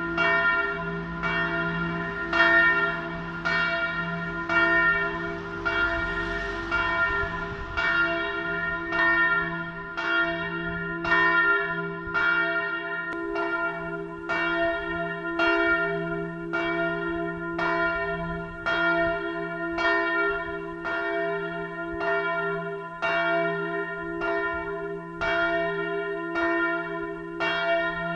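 Bell 1, the largest bell of the parish church of St. Mariä Himmelfahrt in Ebrach, tolling on its own. The strokes come at an even pace, and under them a deep hum keeps sounding.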